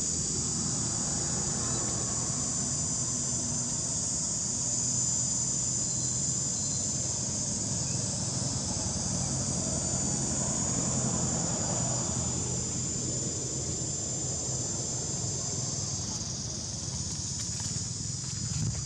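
Steady, dense insect chorus, a continuous high chirring, over a low steady hum that swells briefly around the middle.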